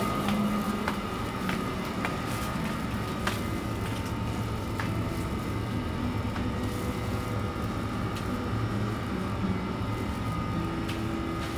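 Steady hum of supermarket refrigerated display cases, with a faint high whine and scattered light clicks.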